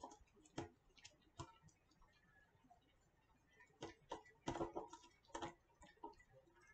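Faint, irregular clicks and taps of gloved hands handling a clear plastic mixing cup and a ceramic mug while spreading epoxy resin, with a small cluster of them about four seconds in.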